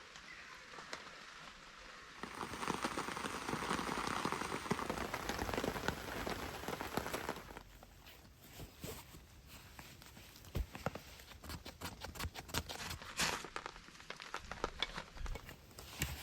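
Rain falling on a hammock tarp: a denser hiss of rain for the first few seconds, then quieter, with many separate drops tapping on the fabric.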